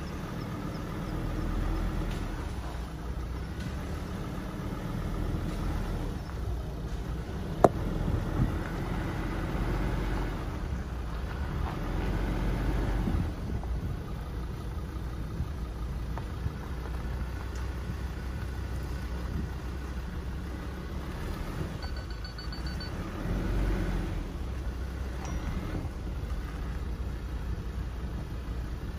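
Car driving on a rough, wet dirt road, heard from inside the cabin: a steady low rumble of engine and tyres that swells and eases, with one sharp knock about seven and a half seconds in.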